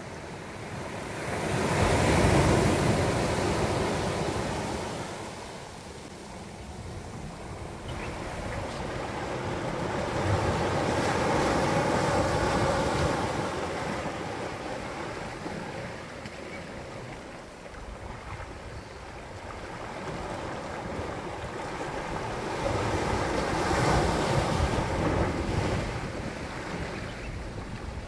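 Sea waves surging in and breaking against a rocky shore. The rush swells up three times, about two, twelve and twenty-four seconds in, with a lower wash of water between the surges.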